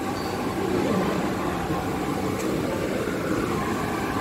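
A steady mechanical drone: a low hum under an even noise, with no clear start or stop.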